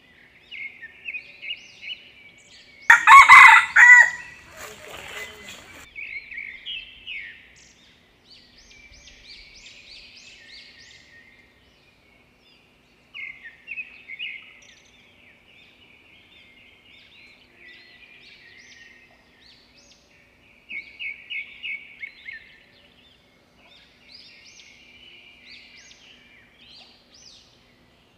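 A village rooster crows once, loudly, about three seconds in. Softer high chirping calls come and go through the rest.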